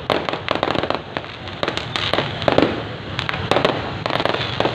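Many fireworks and firecrackers going off in rapid, irregular succession, with sharp bangs over a continuous crackle.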